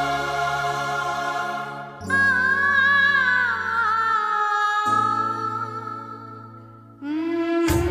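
Background music: slow choral-style music with long held chords and a wavering melody that fades away, then a different, busier song starts abruptly near the end.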